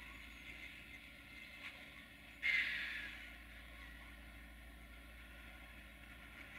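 A Bombardier Talent diesel multiple unit running at a distance, a faint steady noise with a thin high ringing. About two and a half seconds in comes a sudden loud hiss, the loudest sound, which fades over about a second.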